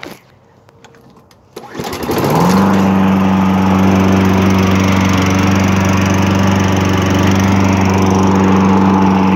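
Toro Recycler lawn mower's small engine starting after a couple of short knocks, catching about two seconds in, rising quickly to speed and then running steadily and loudly. It runs smoothly again after its gummed-up carburetor had the bowl and main jet cleaned.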